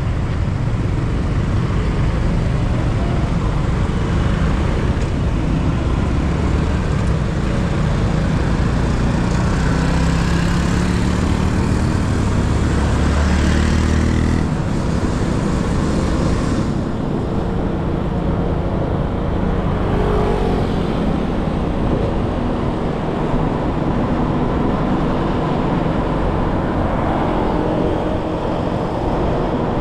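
Steady road and engine noise from a vehicle driving through city traffic. An engine climbs in pitch for a few seconds around the middle.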